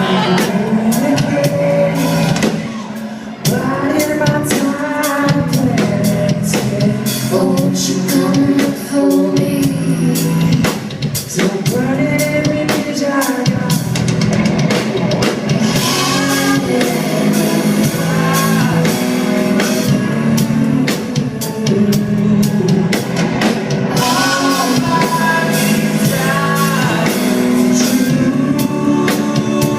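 A rock song with a singer over drum kit and guitar, loud and steady.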